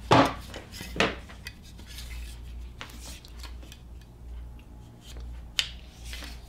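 Metal welder's ground clamp clinking and rattling in the hands while a heavy 1-gauge welding cable is fed through it. There are two sharper knocks about a second apart near the start and another near the end.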